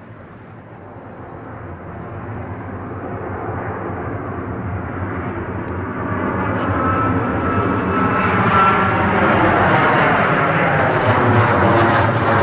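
A WestJet Boeing 737's CFM56 turbofan engines on final approach, the jet noise growing steadily louder as the plane closes in. A faint steady whine joins about seven seconds in, and a sweeping, flanging sound comes near the end as the jet draws close.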